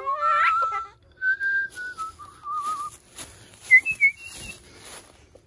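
A person whistling: a few wavering notes that step down in pitch, then a couple of short higher notes. Several sharp clicks sound in the middle.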